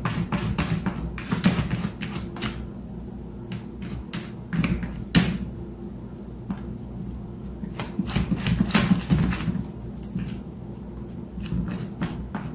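A cat pawing and pushing at a clear plastic storage bin. The plastic gives a run of irregular taps and knocks in clusters, with quieter gaps between them.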